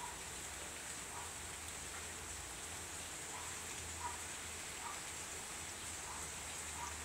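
Steady rain falling, heard through an open window as an even hiss, with a few faint short taps scattered through it.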